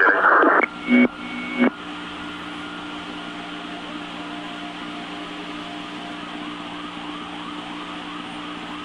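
FDNY dispatch radio channel: a loud burst of garbled transmission noise cuts off about half a second in, then two short squelch bursts follow near one and one-and-a-half seconds. After that the open channel carries a steady hiss and hum, with a faint repeating rising warble from about two seconds in.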